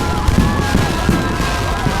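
Fireworks going off continuously, with heavy bangs about three times a second over dense crackling and several high whistling tones sounding at once.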